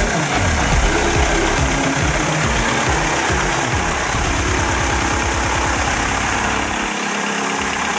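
Piper Pacer's uncowled piston engine running steadily at idle, its propeller turning.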